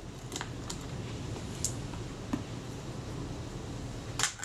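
Faint, scattered metal clicks of a small screwdriver working the tripod-socket screws out of a Kodak Retina IIIC's body casting, with one sharper click near the end, over a steady low hum.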